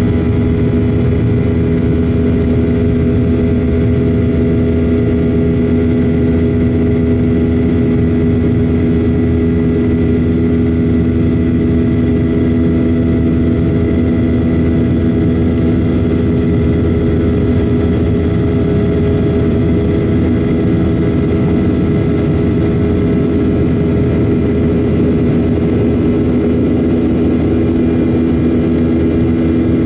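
Steady drone of a Boeing 737-900's CFM56-7B turbofan engines and the rush of air, heard inside the cabin from a window seat over the wing. Several even hum tones sit over a low roar.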